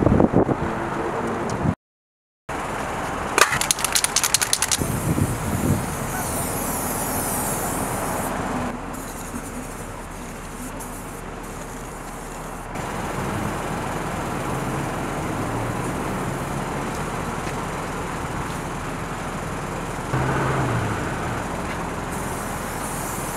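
Street ambience with passing road traffic, cut into several segments with a brief dropout about two seconds in. A quick run of sharp clicks comes about four seconds in.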